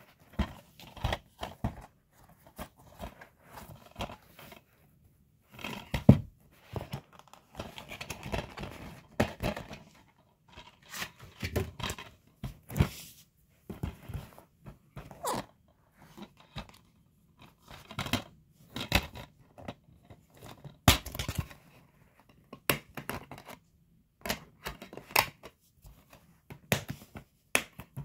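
Handling noise from a plastic DVD case: irregular rustling, scraping and sharp clicks as it is held, turned over and moved about on carpet.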